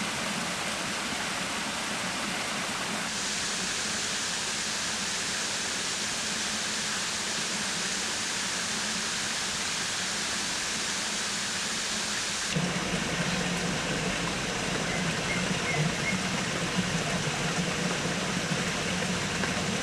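Steady rush of a stream flowing over rocks. The sound changes abruptly about three seconds in and again past the middle, where it turns fuller and lower.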